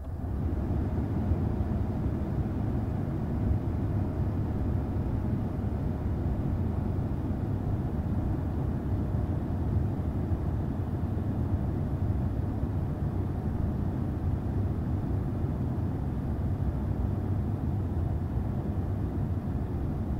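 Mazda CX-5 cabin air vents blowing: a steady, low rush of air from the climate-control fan, heard inside the car.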